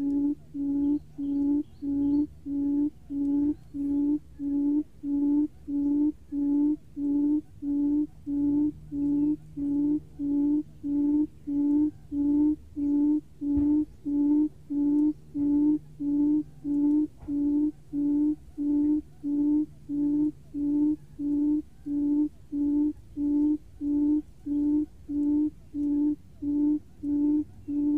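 Barred buttonquail lure call: a low hollow hoot repeated very evenly, about three hoots every two seconds, used to draw wild buttonquail to the trap.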